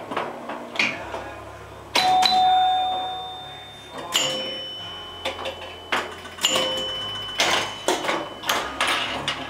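1973 Gottlieb Jungle King electro-mechanical pinball machine in play: a string of sharp clacks from the ball, flippers and relays, with bell-like chime tones ringing out several times as the score reels advance. The loudest chime, about two seconds in, rings on for about a second.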